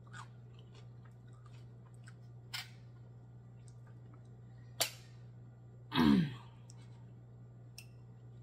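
Close-up eating sounds while picking apart cooked black mussels by hand: a few sharp clicks of mussel shells against the wooden plate and soft chewing. About six seconds in comes a short vocal sound that falls in pitch, the loudest moment.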